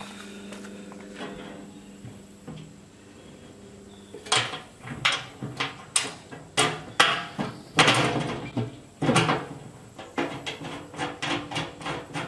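Irregular metal clicks and knocks with a short ring from the steel hood hinge of a Char-Griller Smokin' Champ charcoal smoker as a hinge pin is worked into it by hand. They start about four seconds in and turn lighter and quicker near the end.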